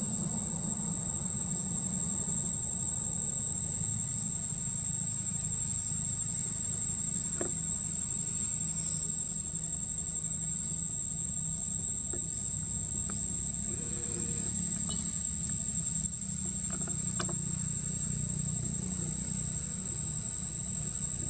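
Insects calling in one steady high-pitched tone, over a low steady rumble.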